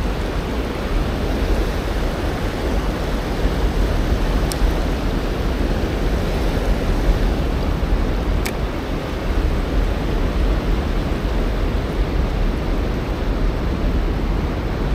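Steady rush of river current running through the rapids below a dam, an even noise with no pauses.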